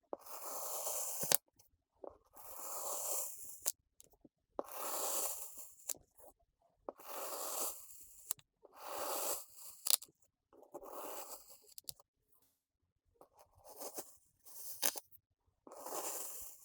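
Kinetic sand being cut in slow, even strokes: a crunching rasp of about a second, repeated roughly every two seconds, some strokes ending in a sharp click.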